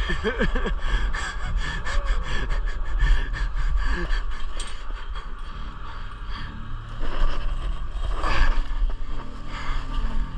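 Heavy, gasping breaths close to a body-worn microphone, over constant rustling and handling noise and a low rumble.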